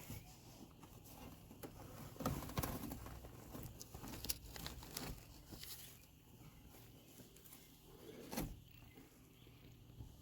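Faint work noises from taking apart interior trim: scattered clicks, knocks and rustling, loudest in clusters about two seconds in and near the end, over a low steady hum.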